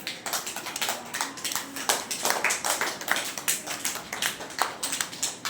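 A group of children clapping their hands together, quick uneven claps that go on throughout.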